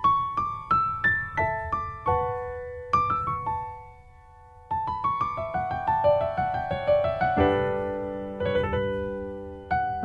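Solo piano music played as struck notes that fade away. After a short lull about four seconds in, a rising run of notes leads into lower, held chords.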